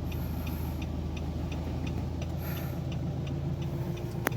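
Nissan Navara's YD25 2.5-litre four-cylinder diesel idling steadily just after starting, with a light regular ticking about four times a second and a single sharp click near the end. It now starts and idles normally, the hard starting cured by repairing a shorted suction control valve harness.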